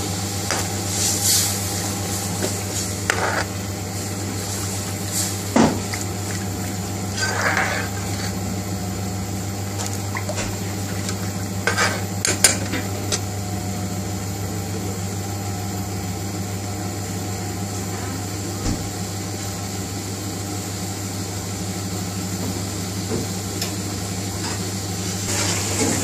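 Dal in an aluminium pan heating on a gas stove over a steady kitchen hum, with a few sharp clinks of a metal spoon against the pan. Bubbling starts near the end as the thinned dal comes up to the boil.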